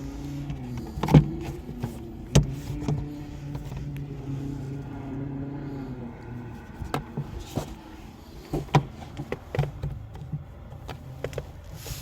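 A steady motor hum that fades out about halfway through, with sharp clicks and knocks scattered over it, the loudest about a second in.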